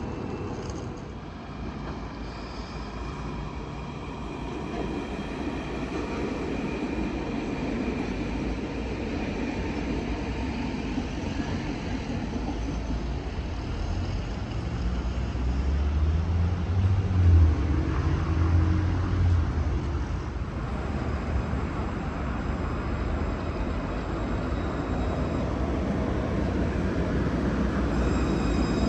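Alstom Citadis tram running on its rails: a steady rumble with a low motor hum, growing louder to its peak about halfway through and then easing a little.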